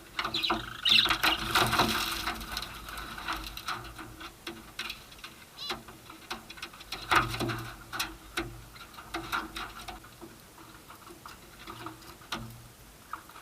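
Baby Alexandrine parakeet and budgies scuffling: a dense run of scratching, clicking and flapping in the first three seconds, with a few short chirps about a second in, then scattered clicks and scratches.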